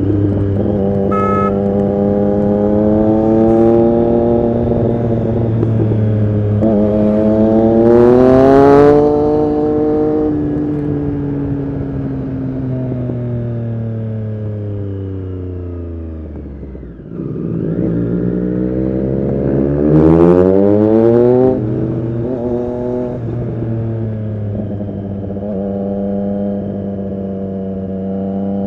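Triumph Street Triple RS 765's three-cylinder engine through an SC-Project S1 exhaust, revving up under acceleration about eight seconds in and then winding down slowly to a low ebb. It pulls hard again with a rising pitch, cuts off suddenly about twenty-one seconds in, then settles into a steady run.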